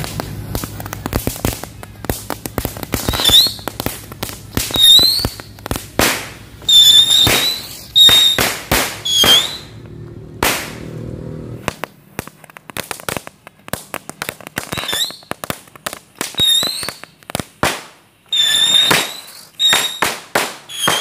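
Flashing Patriot 10-piece firework going off shot after shot: sharp bangs and crackling pops with about ten short high whistles among them. There is a brief lull about ten seconds in, then the rest fire.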